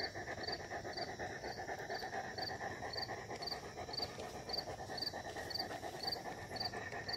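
An insect chirping steadily, short high chirps about twice a second, over a continuous outdoor hiss.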